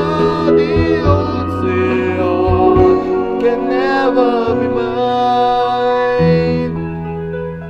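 Ballad outro: a singer holds and ornaments the last sung note with vibrato over keyboard and guitar backing. The voice stops about four and a half seconds in, leaving sustained instrumental chords that slowly fade.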